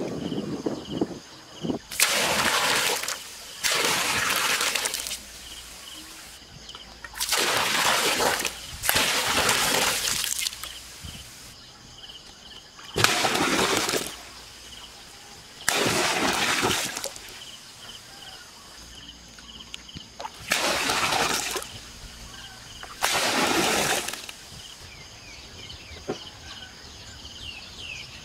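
Water tipped from clay pots splashing into a pool, about eight separate pours of a second or so each, a few seconds apart.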